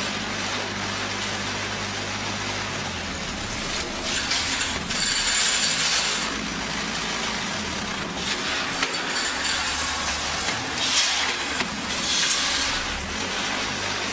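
Concrete block making machine running: a steady low hum with several short hissing bursts at irregular intervals.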